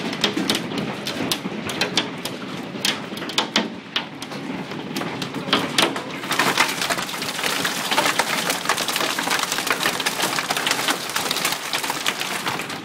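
Large hailstones pelting the house and yard: a dense, irregular clatter of sharp impacts over a steady hiss of falling hail and rain. The hiss thickens about six seconds in as the fall gets heavier.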